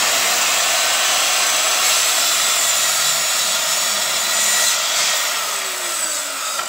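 Wesco electric circular saw running at full speed and cutting a 45-degree bevel through an MDF baseboard, a loud steady whine with the rasp of the blade in the board. It eases off a little near the end as the cut finishes.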